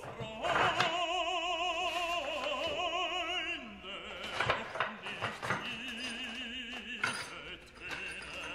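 Background music with operatic singing, the voice holding long notes with a wide vibrato. A few short knocks of wooden parts being handled sound through it in the second half.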